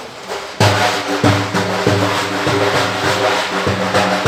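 Music with a steady beat on an arbana frame drum over sustained pitched tones, starting suddenly about half a second in.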